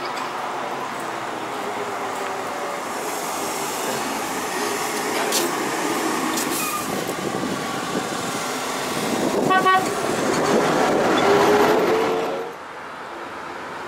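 ZiU-9 (ZiU-682B) trolleybus running close by, with a steady wash of tyre and road noise and the whine of its electric traction motor. There is a brief, sharp, horn-like tone about ten seconds in, and the motor whine then climbs in pitch before the sound drops off abruptly near the end.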